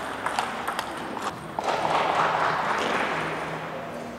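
Table tennis rally: the ball clicking off paddles and table at a quick, even pace, stopping about a second and a half in, followed by a swell of noisy hall sound.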